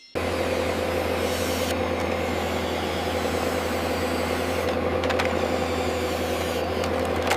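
Engine of a heavy construction machine, an excavator or truck, running steadily with an even low drone.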